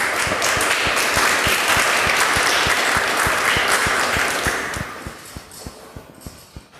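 Audience applauding, a dense patter of many hands clapping that holds steady for a few seconds, then dies away about five seconds in.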